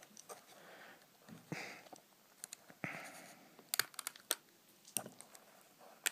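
Small flathead screwdriver prying at the plastic case of a TomTom XL GPS: a few short scrapes, then a run of sharp plastic clicks in the second half as the bezel is worked loose.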